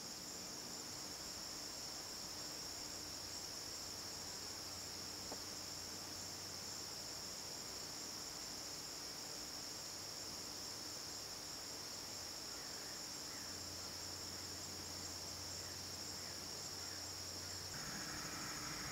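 Steady chorus of crickets and other insects, a continuous high-pitched trilling.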